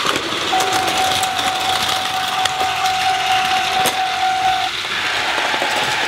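A steady electronic tone from the Plarail DX Crossing Station's sound unit, held for about four seconds, over the whirring motors of battery-powered Plarail toy trains running on plastic track, with a few sharp clicks.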